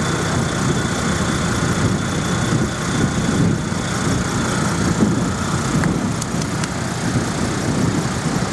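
A four-wheel drive's engine running with a steady low rumble as the bogged vehicle makes another attempt to drive out of soft sand on recovery tracks.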